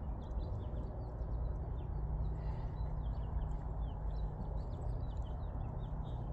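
Outdoor ambience: small birds chirping in quick, scattered notes over a steady low rumble, with a brief hiss about two and a half seconds in.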